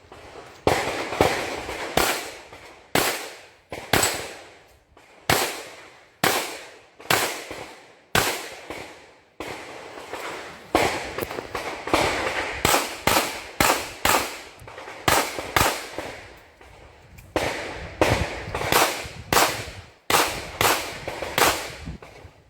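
Pistol shots fired one after another, a couple of dozen in all, irregularly spaced and sometimes in quick pairs, each with a long echoing tail, with two brief lulls.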